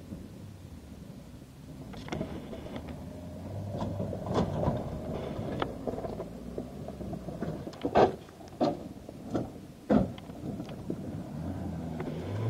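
Off-road 4x4 engine running at low speed as it crawls over rough, rutted ground, with a string of sharp knocks and thuds in the second half, two of them louder than the rest, as the vehicle jolts over the terrain.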